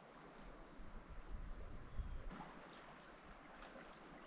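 Faint wind and rain at night: low gusts of wind rumble for about two seconds, then give way to a steady hiss with a few scattered faint ticks.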